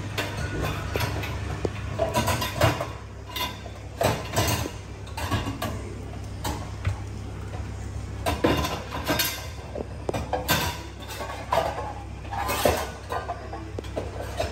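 Irregular clinking and clattering of containers and the metal wire shelves of a pull-out kitchen pantry rack being rummaged through, over a steady low hum.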